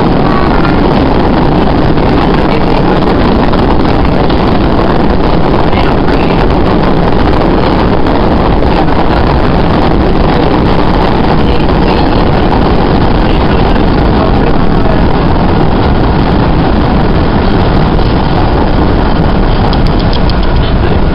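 MBTA Red Line subway train running through a tunnel, heard from inside the car: a loud, steady rumble of wheels on rail and running gear.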